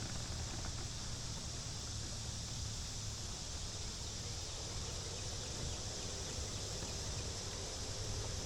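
Steady outdoor background noise: an even high hiss over a low rumble, with no distinct events.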